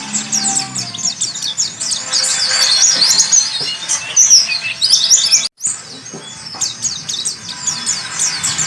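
White-eye (pleci) song: a fast, continuous twittering of high chirps and trills, cut off by a brief dropout about five and a half seconds in.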